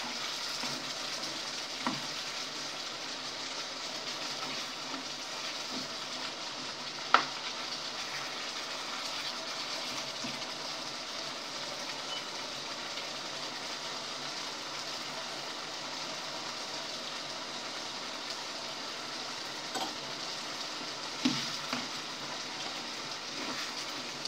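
Chicken wings frying in a pan with a steady sizzle, with a few sharp clinks of a cooking utensil against the pan, the loudest about seven seconds in.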